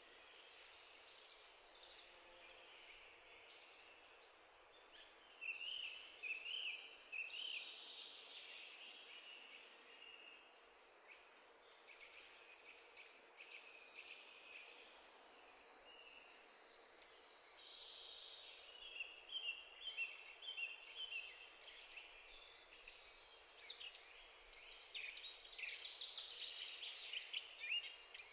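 Tomato and scrambled-egg sauce sizzling and bubbling in a pan, faint, with louder spells of crackling and spitting from about five seconds in and again through the last ten seconds.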